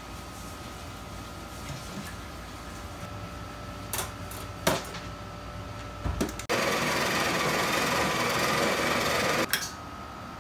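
A few sharp clicks of the portafilter being handled, then a Breville espresso machine's built-in burr grinder running for about three seconds, grinding coffee beans into the portafilter, and stopping suddenly.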